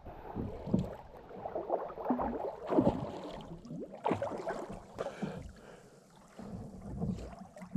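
Lake water splashing and gurgling around people swimming, in irregular uneven splashes.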